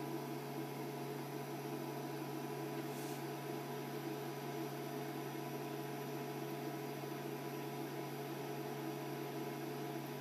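Portable induction hotplate running on full power while heating a saucepan of water: a steady hum with a few constant tones over a fan-like hiss.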